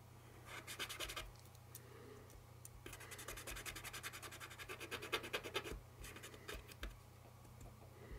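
Fingertip rubbing powdered graphite pigment onto a small model steel coil: faint, rapid scratchy rubbing in several spells with short pauses between them.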